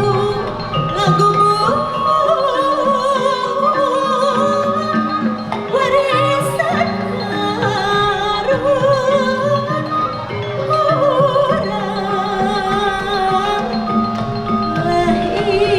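Sundanese gamelan degung ensemble playing: struck bronze metallophones hold stepped notes while a wavering, ornamented melody line runs over them.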